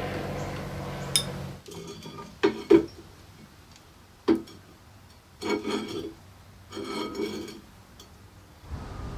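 Steel parts knocking and clinking as a tapped steel mounting plate and linear-bearing carriage are worked loose from a drill press vise and handled: a few sharp knocks and two short bouts of ringing metal rattle. A steady machine hum cuts off just after the first second and comes back near the end.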